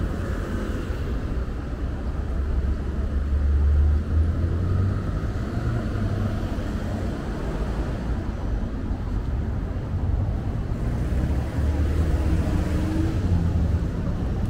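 Road traffic on a busy city avenue: cars passing with a steady low rumble that swells about four seconds in.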